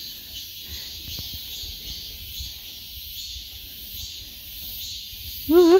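Steady, high-pitched insect chorus with low wind rumble on the microphone. A brief high voice near the end.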